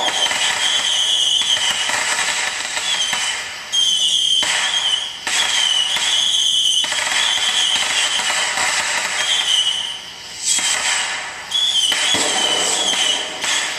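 Fireworks going off in quick succession: a loud, dense crackling hiss with a wavering high whine running through it, and fresh bursts cutting in suddenly several times.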